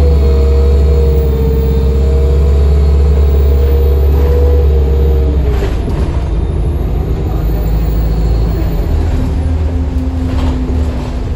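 Alexander Dennis Enviro200 MMC bus's diesel engine and Allison T2100 automatic gearbox pulling hard under load, heard from inside the cabin at the rear: a deep rumble with a steady whine. About five and a half seconds in the pull eases, and the rumble and whine drop away to a lighter running sound.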